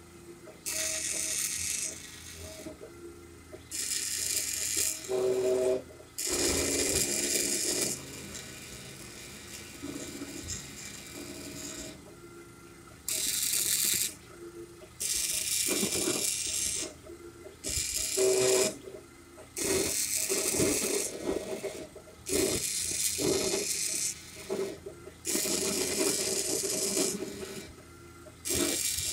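A K40-type CO2 laser cutter's stepper motors buzzing and whining in shifting pitches as the head traces letter outlines on cardboard, with repeated loud bursts of high hiss of one to two seconds each.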